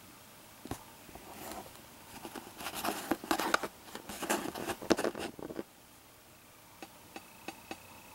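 Kennedy half dollar coins handled on a cardboard surface: rustling and scraping with sharp clicks of coin on coin and on the board, busiest in the middle, then a few separate clicks near the end.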